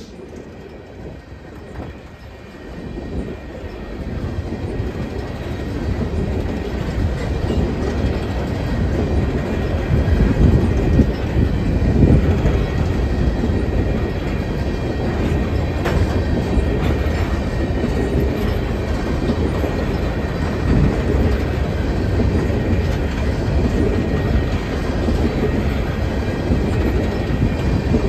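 Freight train of aluminium coal hopper cars rolling past, wheels rumbling on the rails. The rumble grows louder over the first several seconds, then holds steady.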